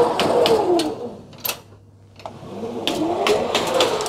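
Bakery oven loader with a canvas belt running on metal rails, being drawn back out of a deck oven: two passes of rolling whir with clicks and clacks. In each pass the whir rises then falls in pitch, with a short pause between them.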